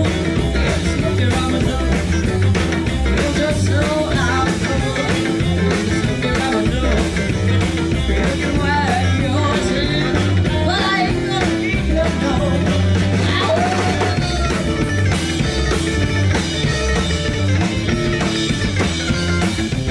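A live rock and roll band playing: electric guitars, drum kit and saxophone over a steady beat.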